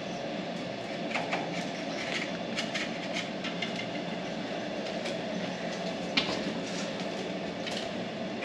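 Scattered light clicks and scrapes of a straightened coat hanger and bundled wires being fished through a Jeep TJ's body and frame, with one sharper click about six seconds in. A steady background hum runs underneath.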